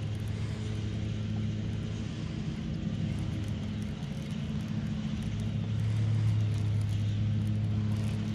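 A small motor running with a steady, even low hum that grows louder past the middle.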